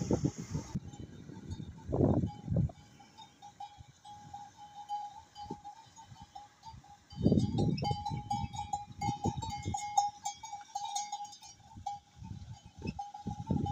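Bullock-driven Persian wheel (rehat) turning: a steady, slightly wavering high squeal from its gearing, with irregular low knocks and rumbles and faint clicking about midway.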